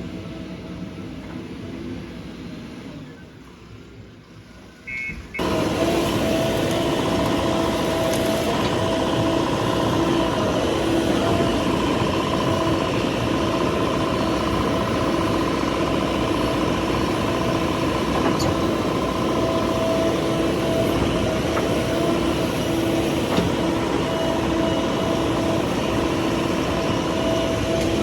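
JCB 3DX backhoe loader's diesel engine running steadily, a constant mechanical drone with a steady whining tone over it. It comes in suddenly about five seconds in, after a quieter, fading stretch of machine noise.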